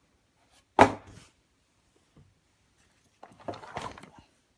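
One sharp plastic clack about a second in, then about a second of lighter knocking and rustling near the end: a Hoover Air Lite upright vacuum's plastic parts being handled and set in place.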